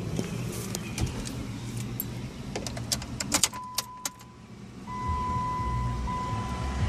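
Keys jangling and clicking in a Jeep Wrangler's ignition, then a steady high electronic tone with a low hum that comes up about five seconds in.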